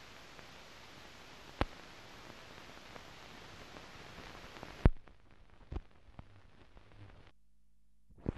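Steady hiss with a few sharp clicks and pops, the loudest about five seconds in: the surface noise of a silent newsreel transfer with no soundtrack. The hiss cuts out for about a second near the end.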